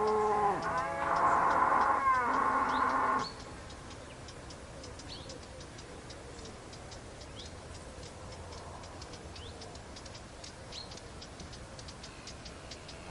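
A cow moos: the tail of one call fades out about half a second in, and a second, louder moo follows from about one to three seconds in. For the remaining ten seconds only faint outdoor background is left, with a few short bird chirps and a faint, steady high ticking.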